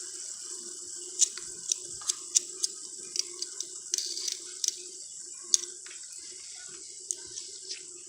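Two fidget spinners spinning down side by side, their bearings giving a steady whirring hiss over a low hum, with scattered light clicks and ticks.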